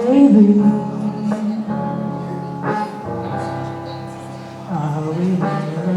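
A love song sung with instrumental backing, the singer holding long notes and sliding between them.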